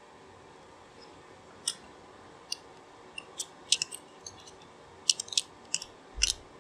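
Small, sharp metal clicks and taps as valve parts are worked into a bore of a cast-iron 200-4R transmission valve body by hand, coming in scattered clusters, with a duller knock near the end.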